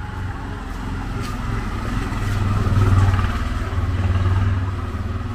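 A small motor vehicle's engine running close by with a steady low hum, growing louder to a peak about three seconds in and then easing off.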